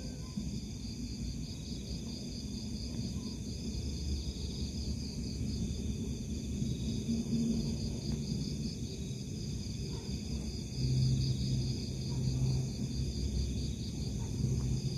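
Chorus of crickets chirping in a steady, high, fast-pulsing trill over a low rumble. A low hum joins about eleven seconds in.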